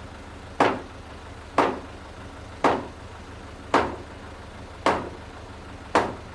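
Steady, evenly paced hammer blows on the timber frame, about one a second, six strikes in all, each cracking sharply and dying away quickly. A steady low engine hum runs underneath.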